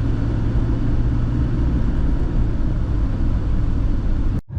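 Steady low rumble of a vehicle being driven, heard from inside: engine and road noise. It cuts off suddenly near the end.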